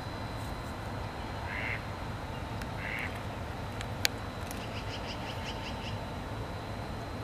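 Short, harsh animal calls, two in the first three seconds, then a quick run of fainter calls about halfway through. One sharp click comes just before the run.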